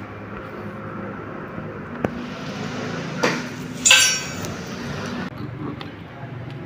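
Metal hand tools clinking and clanking on a concrete floor: a sharp click about two seconds in, a knock just after three seconds, and a louder, ringing metal clank about four seconds in.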